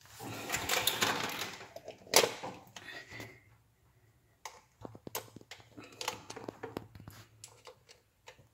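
A plastic wall-socket cover plate scraping and rubbing against the wall box as it is pushed into place, with one sharp plastic click about two seconds in. This is followed by a run of small clicks and ticks as a small screwdriver turns the centre screw of the antenna socket cover.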